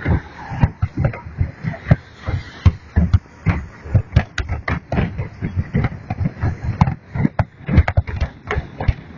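Fireworks display going off: a dense, irregular run of booms and bangs, several a second, with no break.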